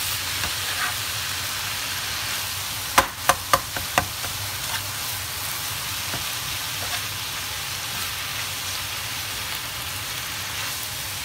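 Spring-roll filling of ground meat, bean sprouts and shredded carrot sizzling as it is stir-fried in a pan with a spatula. Four sharp knocks of the spatula against the pan come in quick succession about three seconds in.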